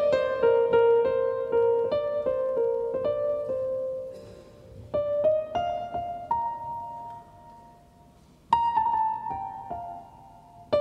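Solo piano music: single notes and chords struck and left to die away, thinning to a lull about four seconds in, then picking up again, with a loud chord about eight and a half seconds in.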